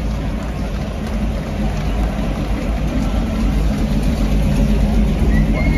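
Engine of a 1932 Ford–style hot rod running at low speed as it rolls slowly past, growing louder as it comes closer.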